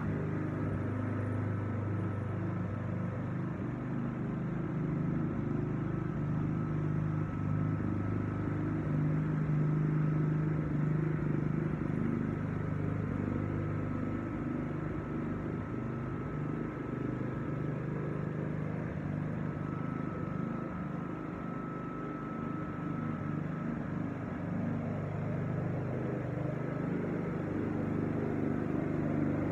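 Petrol walk-behind lawn mower engine running steadily while mowing, its hum swelling and fading as the mower moves back and forth, and getting louder near the end as it comes closer.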